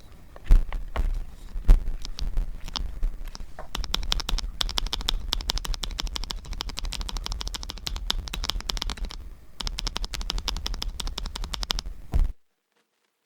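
Typing on a Nuphy Gem 80 mechanical keyboard: a few heavy, deep-thudding keystrokes at first, then a fast, steady run of clacking keys with a brief break, stopping abruptly near the end.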